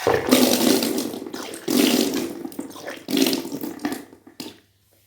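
A person vomiting water in three heavy gushes, then a few smaller splashes near the end: salt water brought back up during kunjal kriya, the yogic stomach-cleansing practice.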